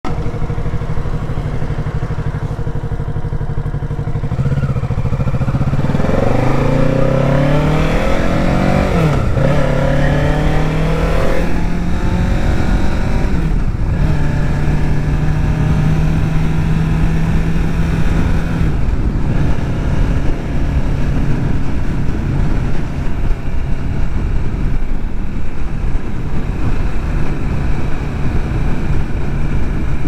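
Kawasaki Ninja 650's parallel-twin engine accelerating up through the gears, its pitch rising and then dropping at each of two shifts, then running steadily at cruising speed. Wind noise rushes on the microphone.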